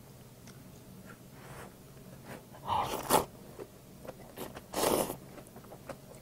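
Instant black-bean noodles slurped up from the cup, with two loud slurps about three and five seconds in and small wet mouth clicks between.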